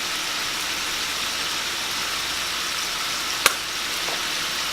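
Shrimp frying in hot olive oil in a skillet, a steady sizzle, with one sharp click about three and a half seconds in.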